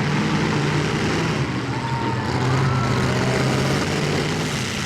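Engines of several demolition derby cars running together, a steady low drone.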